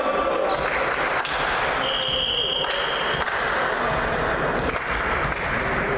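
Volleyball rally in an echoing sports hall: several sharp hits of the ball, with players shouting, and a short high squeal about two seconds in.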